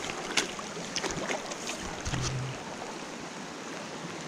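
Steady rush of river water with wind on the microphone, and a few sharp clicks in the first second and a half.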